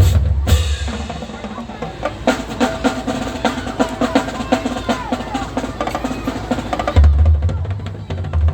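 A marching band drum line playing its feature: rapid snare strokes and rolls over tenor drums, with bass drums pounding at the start and again from about seven seconds in.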